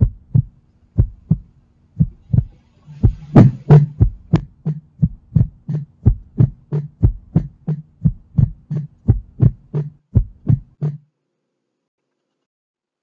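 Heartbeat sound effect: low paired thumps about once a second, quickening after about three seconds into a fast, even run of beats, with a steady low hum beneath. It stops about eleven seconds in.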